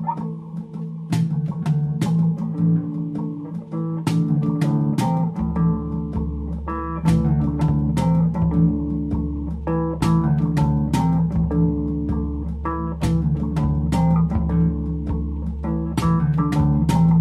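Background music: an instrumental with guitar and sharp percussive hits, and a bass line that comes in about five seconds in.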